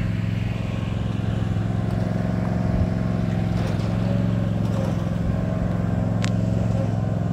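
Steady low motor hum with an even pitch, and a single short sharp click about six seconds in.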